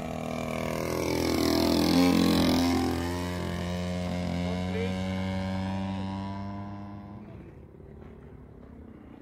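Engine of a radio-controlled scale model aeroplane making a low flypast. It grows louder to a peak about two seconds in, drops in pitch as it goes by, then fades away as the model climbs off.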